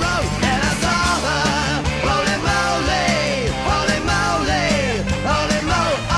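Rock song playing, with a steady drum beat and melody lines that slide and bend in pitch.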